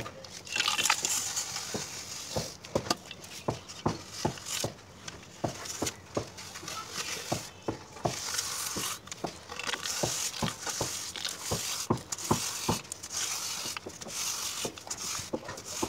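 Fresh cement plaster on a brick wall being scraped level with a long straightedge: scraping strokes in bursts of a second or two, with frequent small knocks throughout.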